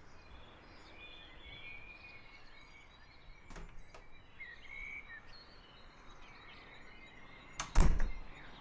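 Birds chirping over a faint steady background hiss, with a loud cluster of two or three sharp knocks a little before the end.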